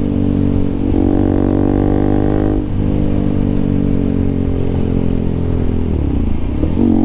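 KTM RC 200's single-cylinder engine running through an aftermarket full-system exhaust with an SC Project-style can, holding steady revs while riding. Near the end the revs fall away briefly and then pick up again.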